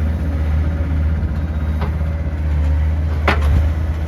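Heavy farm machine's engine running steadily close by, with a sharp knock about three seconds in.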